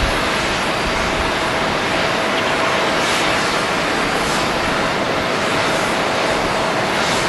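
Boeing 737-700 jet engines (CFM56-7B turbofans) running at low, even taxi thrust: a steady rushing hiss with a constant whine through it.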